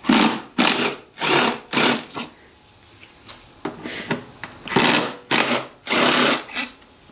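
Cordless drill with a 10 mm socket spinning bolts out of a Subaru EJ25D engine's timing-belt cover in short trigger bursts. About four quick runs come in the first two seconds, then after a pause a few more around the fifth and sixth seconds.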